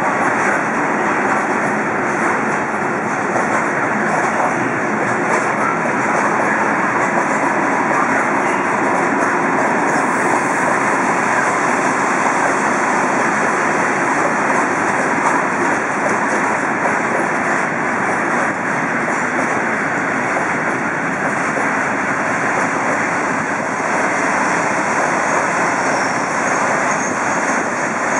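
Loaded coal hopper wagons of a long freight train rolling past, a steady loud noise of steel wheels running on the rails. A faint high squeal joins in near the end.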